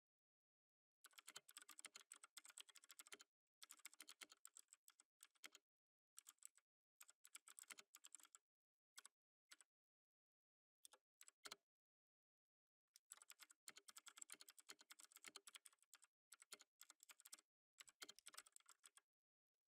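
Faint computer keyboard typing: quick runs of keystrokes broken by pauses, with a few single key presses around the middle and a long steady run of typing starting about two-thirds of the way through.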